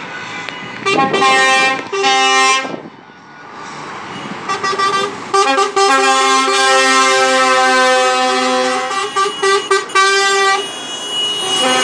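Trucks' multi-tone air horns blowing as they pass. Two short blasts, then a long blast, then a quick run of short toots.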